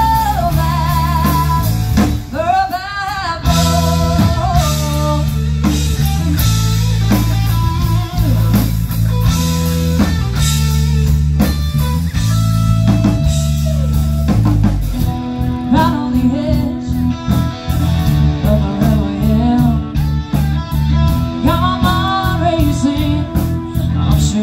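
Band playing blues-rock with drums, bass and electric guitar, a bending, wavering lead line over the top.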